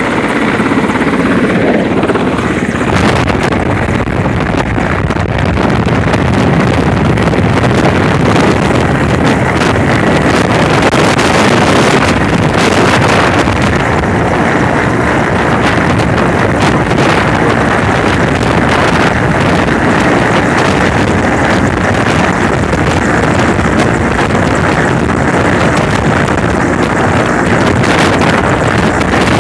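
Large transport helicopter running right alongside as it comes in to land: a loud, steady rotor-and-turbine din, with its downwash buffeting the microphone.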